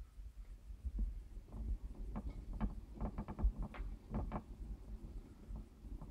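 Irregular light clicks and scratches as harvest mice move about their cage among twigs and the plastic exercise wheel, over a low rumble.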